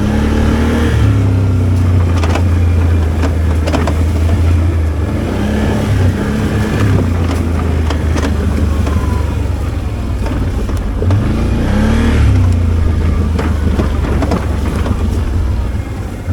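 ATV engine running under load on a dirt trail, its pitch rising and falling several times as the throttle is worked over a hump, with scattered knocks from the machine jolting over the ground.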